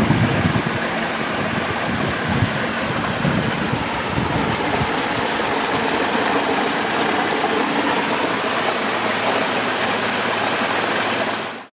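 Water rushing and splashing steadily along the hull of an electric solar-powered catamaran under way. It fades out near the end.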